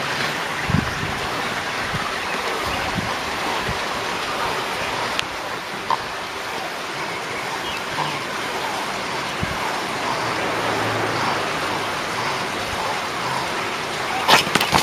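Steady rushing noise, much like running water, with a few faint clicks, and a cluster of sharp crackles near the end.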